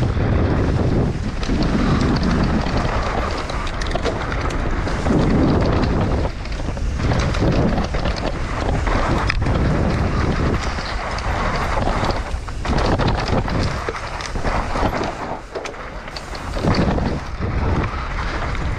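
Wind buffeting the microphone over the rumble of a Propain Ekano 165 mountain bike's tyres on a fast dirt-trail descent. Frequent sharp knocks and rattles sound as the bike hits bumps and roots.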